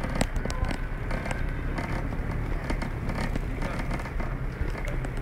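Bicycle rolling over block paving: a steady rough rumble from the tyres with many small clicks and rattles scattered through it.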